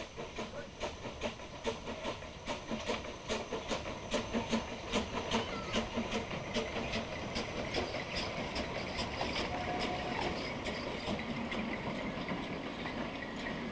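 A Henschel-built narrow gauge steam tank locomotive, No. 1091, chuffing past at about three exhaust beats a second, with steam hiss. From about eight seconds in, the beats fade and its flat wagons rumble over the rails.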